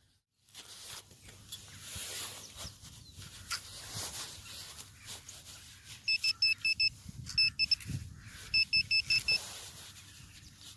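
Metal detector beeping: three quick runs of short, high-pitched beeps, about five, then three, then five, starting about six seconds in, a signal over a buried metal target. Before that, faint rustling of long grass.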